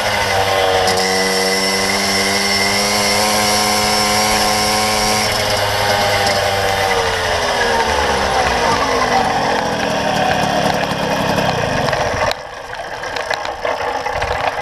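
Two-stroke Puch Maxi moped engine with a Proma GP expansion-chamber exhaust running at a steady cruising pitch, then falling in pitch as the moped slows. The engine sound stops suddenly about twelve seconds in, leaving quieter clicks and knocks.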